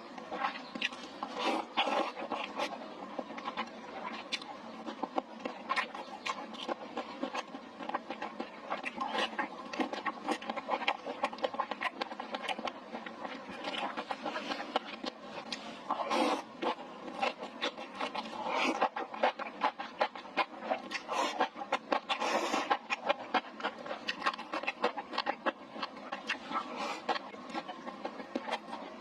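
Close-miked eating sounds of spicy dry pot: continuous chewing and mouth smacking with many small wet clicks, a few louder bites or slurps.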